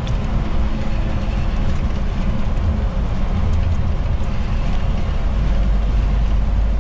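Loaded tractor-trailer truck driving at expressway speed through a road tunnel: a loud, steady mix of engine and tyre noise heard from inside the cab, very noisy in the tunnel, with the low rumble growing a little heavier near the end.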